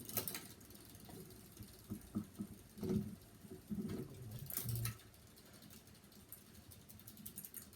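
Hampton Bay Minuet ceiling fan coasting down after being switched off, with faint low room sound and a few scattered knocks and clicks.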